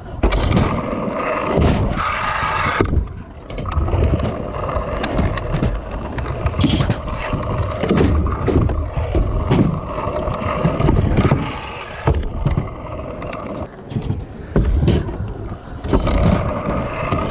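Stunt scooter wheels rolling over skatepark ramps and concrete, with repeated sharp clacks and knocks from the deck and wheels hitting ramp edges and landing, heard close from a rider-mounted camera.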